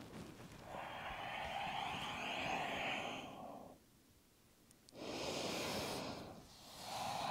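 A woman breathing audibly: one long breath of about three seconds, a silent pause of about a second, then two shorter breaths.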